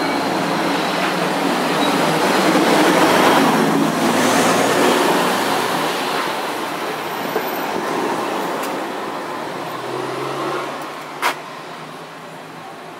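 Neoplan touring coaches and cars driving past close by one after another, with engine and tyre noise swelling to a peak about three to four seconds in and then slowly fading. A sharp click about eleven seconds in.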